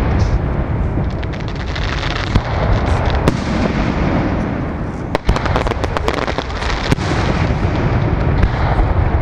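Fireworks display: aerial shells bursting overhead over a steady low rumble, with scattered sharp cracks and a dense run of rapid crackling about five to seven seconds in.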